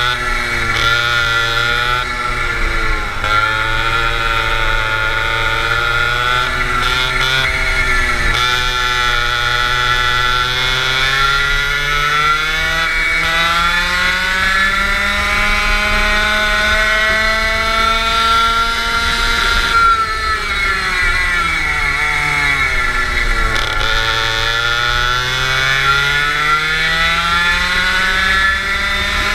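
Go-kart engine heard from the driver's seat while racing, its pitch dipping and rising through the corners, climbing slowly down a long stretch, falling sharply a little after twenty seconds in as it slows, then climbing again near the end.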